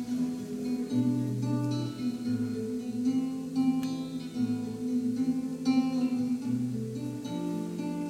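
Solo acoustic guitar playing chords, picked and strummed, with the bass notes changing every second or so: the instrumental introduction to a song.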